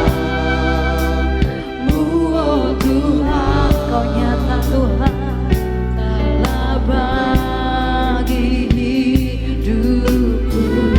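Live worship band music: sung voices holding wavering notes over bass and a regular drum beat.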